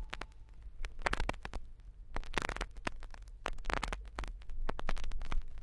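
Vinyl record surface noise after the music ends: crackle and scattered clicks over a low rumble, with a denser burst of clicks about every second and a third, once per turn of a 45 rpm single.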